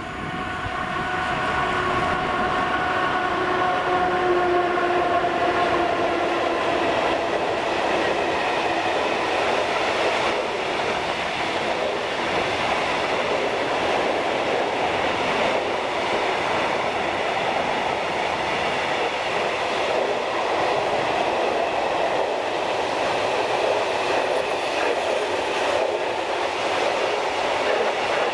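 A freight train hauled by a class 131 twin-section electric locomotive passing. The locomotive's whine falls in pitch as it goes by in the first few seconds, then a long rake of loaded open coal wagons rolls past steadily with wheel clatter.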